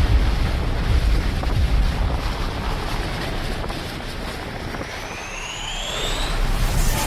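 Layered fight sound effects: a heavy, wind-like rumble that slowly dies down, then a rising whistling whine for about a second and a half that builds to a sudden cut at the end.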